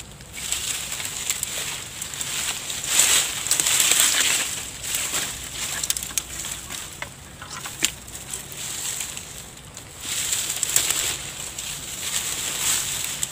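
Dry grass, twigs and brushwood rustling and crackling in irregular bursts as they are pulled up by hand and trampled under rubber boots.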